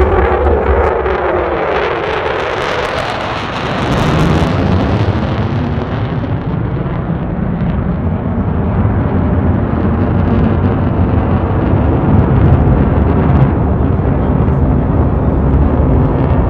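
Military jet fighters in a low formation flyby: the jet whine drops in pitch as they pass, the roar is brightest about four seconds in, then settles into a long low rumble of jet noise.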